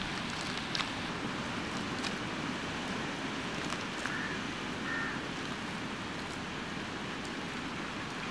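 Steady background hiss of outdoor ambience, with a few faint clicks and two short faint high chirps.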